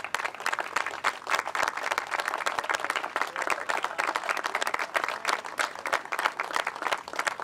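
A small crowd applauding, many hands clapping at once in a dense, overlapping patter.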